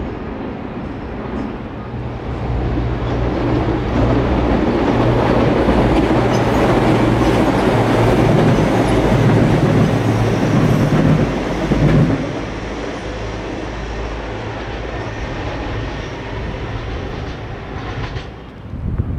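GO Transit diesel-hauled bilevel commuter train passing: a steady low engine drone with wheels rolling and clacking over the rails. It builds and is loudest through the middle, then drops off sharply about twelve seconds in, leaving a lower rumble.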